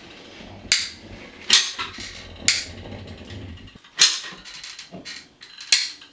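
Manual caulking gun clacking five times, about a second apart, as its trigger is squeezed to run a bead of MS polymer sealant around the edge of a shower niche.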